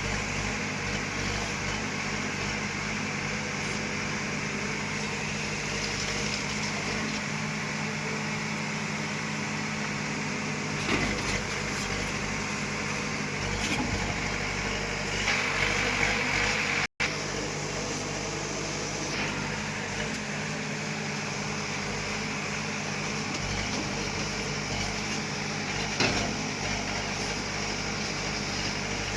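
Heavy earthmoving machinery's diesel engine running steadily under load, with an even low drone and a few brief louder moments. The sound cuts out for an instant a little past halfway.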